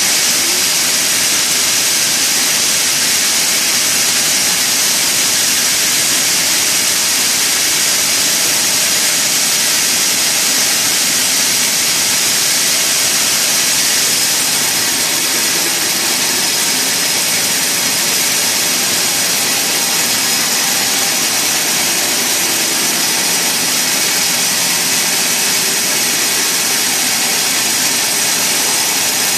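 Sawmill machinery running steadily: a loud, even, hissing mechanical noise that eases slightly about halfway through.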